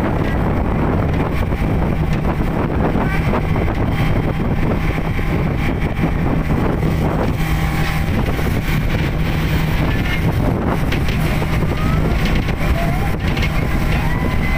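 Passenger speedboat's engine running steadily at speed, with water spray rushing along the hull and wind buffeting the microphone.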